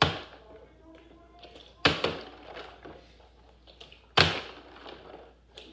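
A partly filled plastic water bottle being flipped and hitting a wooden floor, three sharp thuds about two seconds apart, each with a short rattle after it.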